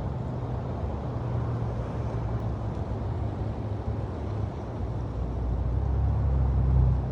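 Motor vehicle rumbling past, its engine hum growing louder to a peak near the end and then falling away.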